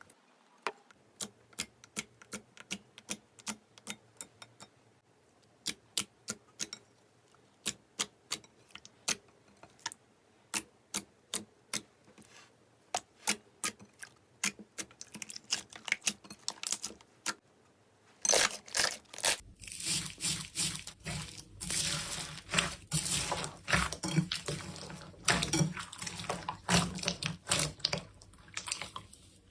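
Slime being pressed and stretched by hand, with air pockets popping in sharp clicks a few times a second. About two-thirds in, it turns into a louder, denser run of crackling and squishing.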